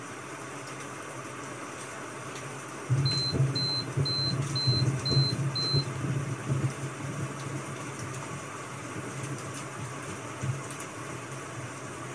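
A timer beeping six short times, about two beeps a second, over a steady hiss like rain. A low hum comes in with the beeps and wavers on for a few seconds.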